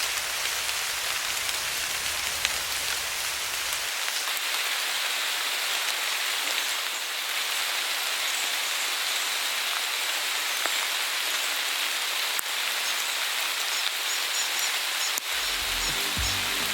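Steady rain falling, an even hiss with scattered single drops ticking.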